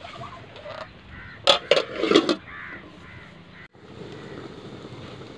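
An aluminium plate-lid clanking onto an aluminium cooking pot: a couple of sharp metallic knocks and a short rattle about a second and a half in. A steady low noise follows.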